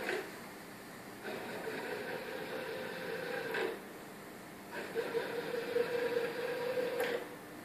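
Axis drive motors and Trespa transmission gears of a five-axis positioning machine running in short moves. Each move is a steady whirring hum lasting about two and a half seconds and ends with a click. Two moves are heard, separated by a pause of about a second.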